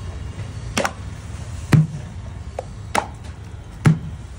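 Very soft, wet matka roti dough being lifted by hand and slapped down into a wide metal plate, five wet slaps about a second apart, some louder than others. The dough is beaten like this and thinned with water over about an hour to get its stretchy consistency.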